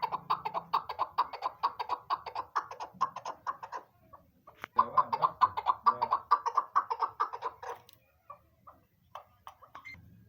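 Chukar partridge (chakor) calling: a fast run of short clucking 'chuk' notes, about eight a second. The run breaks off, a single sharp click follows, then a second run and a few scattered notes near the end.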